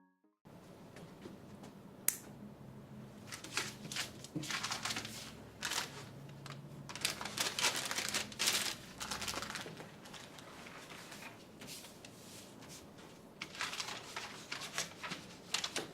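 Someone rummaging through papers and belongings: irregular rustling and crinkling of paper, with a sharp click about two seconds in.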